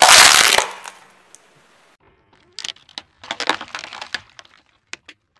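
Car tyre crushing objects: a loud crack right at the start as it rolls onto shiny red balls, then a run of crackling snaps and splashes from about two and a half seconds in as it crushes a plastic basket of water balloons, which burst and spray water.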